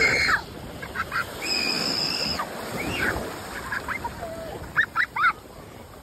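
Shallow surf washing around the legs, with several short, high-pitched cries over it: one held cry about a second and a half in, and a quick burst of rising squeals near the end.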